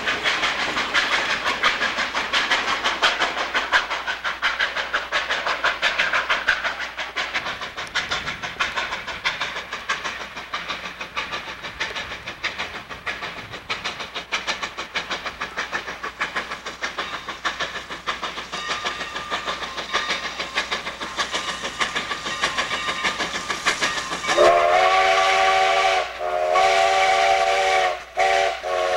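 Steam train running, a dense rhythmic rattle and clack of wheels on the rails. About twenty-four seconds in, Sierra Railway No. 28's steam whistle sounds a loud chord, broken twice by brief gaps, blown for a grade crossing.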